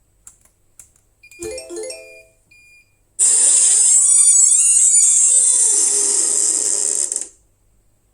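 Escape-room button box's electronics sounding as the puzzle is solved. A couple of faint clicks come first, then a short run of electronic beeps. About three seconds in, a loud electronic tune plays for about four seconds and cuts off sharply.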